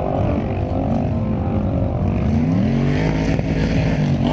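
Engine of a four-wheel-drive vehicle running under load while dune bashing in sand. The revs dip about two seconds in, then climb and hold high near the end.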